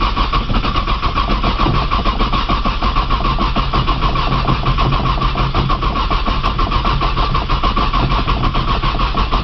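A 1995 Nissan Maxima's V6 being cranked by its starter motor in the cold. The starter whines with an even, rapid pulsing and the engine never fires. It is a cold no-start that the owner suspects comes from a bad sensor.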